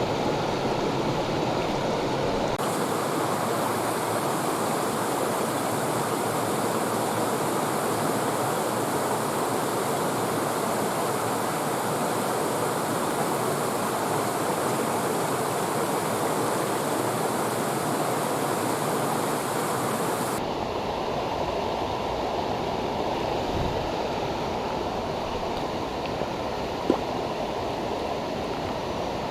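Steady rushing of a trout brook's flowing water. The hiss brightens abruptly a couple of seconds in and turns duller again about two-thirds of the way through, with a single sharp click near the end.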